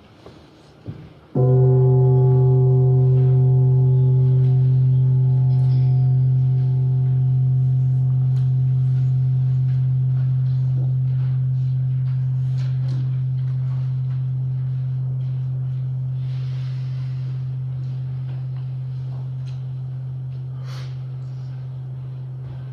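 A deep gong struck once about a second in, then ringing on with a low hum and a few higher overtones that die away first, slowly fading over some twenty seconds.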